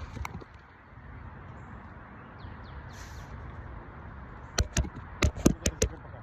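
Steady low outdoor background noise, broken near the end by a quick run of about seven sharp clicks and snaps in just over a second.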